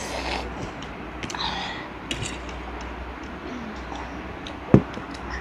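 Mealtime table sounds: scattered light clicks and taps of cutlery on a plate and of food being handled, with one sharp knock on the table near the end, over a steady low hum.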